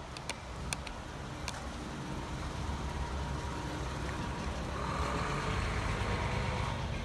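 Approaching Amtrak passenger train, cab car leading with a Siemens SC-44 Charger diesel locomotive pushing at the rear: a steady low rumble that slowly grows louder as the train nears.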